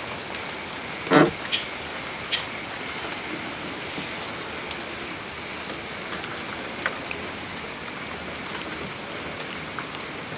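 Steady high chirring of night insects, with a short knock about a second in and a few faint clicks.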